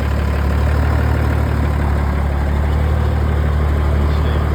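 1973 M35A2 deuce-and-a-half's multifuel inline-six diesel idling steadily through its straight-piped exhaust with no muffler, a loud, even low drone.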